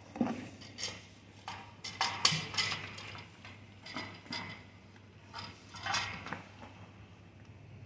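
Irregular clicks and clinks as a drain-cleaning hose is fed down into a grease-clogged floor drain, knocking against the drain opening and pipe. They come about every half second for some six seconds, then die away.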